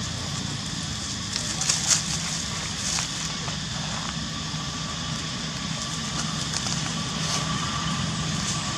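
Steady low hum of an engine running in the background, with a few sharp crackles of dry leaves about two and three seconds in. A thin steady tone comes in about halfway through.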